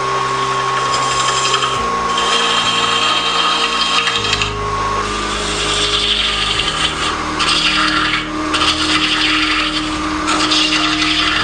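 Wood lathe running while a turning tool cuts into spinning cherry wood: a steady motor hum under a scraping hiss as the tool peels off shavings. The hum shifts in pitch about two seconds in and again about four seconds in.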